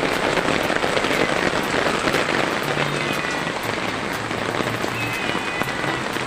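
Heavy rain pouring down in a storm: a steady, dense hiss of rain hitting surfaces.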